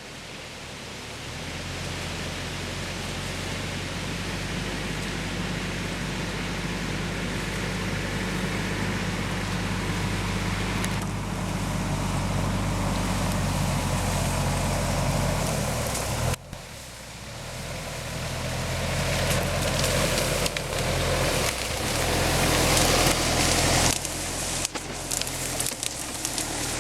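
Off-road SUV engine running steadily under a broad rushing hiss, slowly growing louder. The sound drops out briefly about 16 seconds in, then resumes.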